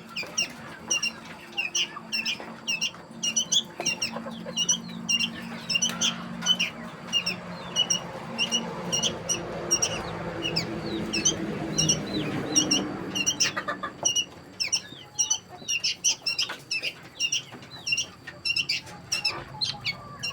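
Poultry chicks peeping without pause, many short high cheeps several times a second, over a low steady hum; a rushing noise swells in about a third of the way through and fades a few seconds later.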